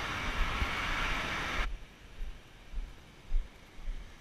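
Steady street traffic noise that cuts off abruptly about one and a half seconds in, leaving only faint low thumps.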